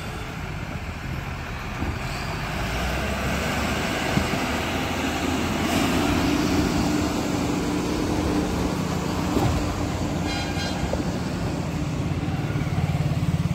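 Diesel engine of heavy road-building machinery running steadily, with a steady hum that grows a little stronger about six seconds in. A brief high-pitched sound comes about ten seconds in.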